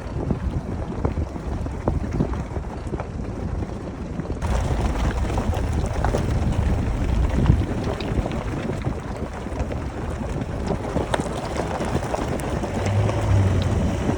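Jeep Liberty KJ driving along a rough mountain track: a steady rumbling with scattered knocks and wind buffeting the microphone. The sound gets louder and fuller about four seconds in.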